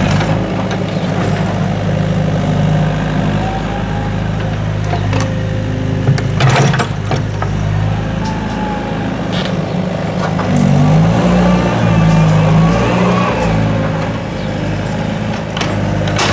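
Doosan DX55W wheeled mini excavator's diesel engine running steadily while digging, its note rising and wavering under hydraulic load about ten seconds in. A few knocks from the bucket and soil come through, the sharpest about six seconds in.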